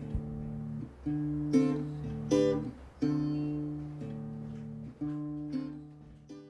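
Background music on acoustic guitar: plucked and strummed chords, a new chord struck about once a second and ringing on between strokes, fading out near the end.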